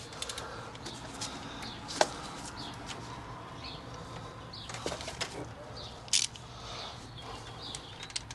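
Light metallic clicks and rustling as a spark plug socket on extensions is turned by hand to thread a new spark plug in. The clicks are irregular and scattered, with a sharper one about two seconds in and a louder pair around six seconds in.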